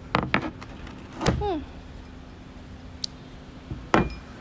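A few sips from a glass of tea, with a short falling tone about a second in, then a sharp knock near the end as the glass is set down on the table. A faint steady hum runs underneath.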